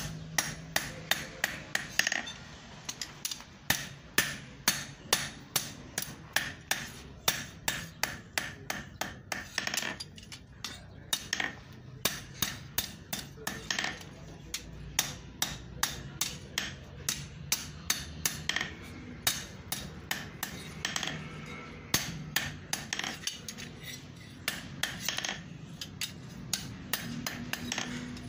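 Hand hammer striking iron held in tongs on an anvil, a blacksmith forging a tool: a steady run of sharp metallic blows, about two to three a second, broken by a couple of short pauses.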